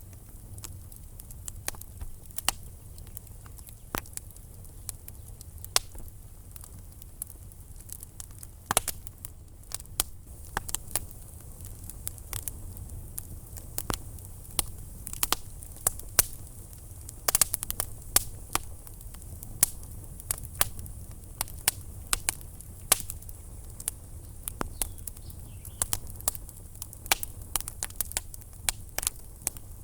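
Wood fire burning in a fireplace: irregular sharp crackles and pops over a low steady rumble of the flames.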